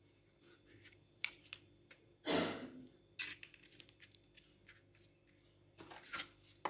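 Faint clicks and soft handling noises of lasagna sheets being laid into a ceramic baking dish, with a short, louder swish about two seconds in.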